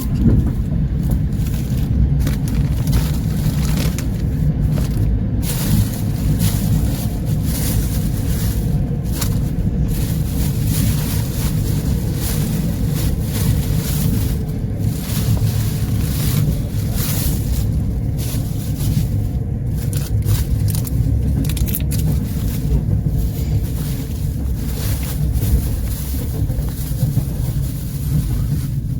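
Passenger train running at speed: a steady low rumble of the wheels on the rails.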